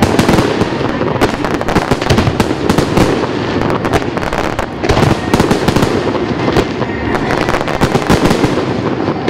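Aerial fireworks display: many shells bursting in rapid, overlapping succession, a continuous barrage of bangs and crackle with no pause.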